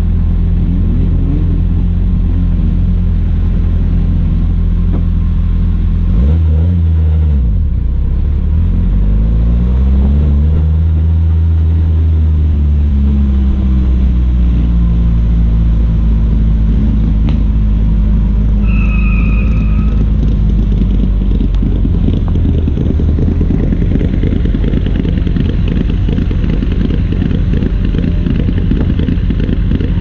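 Rally car engine idling and running at low revs while the car creeps along at low speed. Its pitch rises and falls several times, with a sharp blip of the throttle about six seconds in and a rougher, harsher note in the last few seconds.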